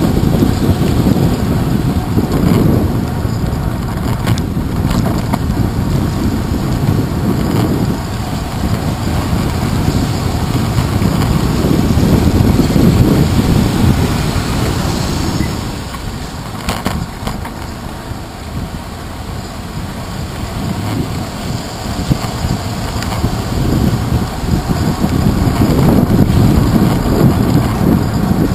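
Low, muffled rumble of wind and road vibration on a handlebar-mounted GoPro Hero 2 while a bicycle rides through wet city traffic. The rumble eases for several seconds a little past the middle, then builds again.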